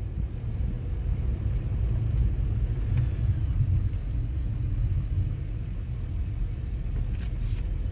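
Steady low rumble of a truck driving, heard from inside its cab.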